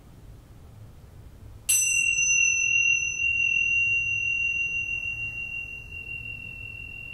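A high-pitched bell struck once about one and a half seconds in, then ringing on with a clear, slowly fading tone.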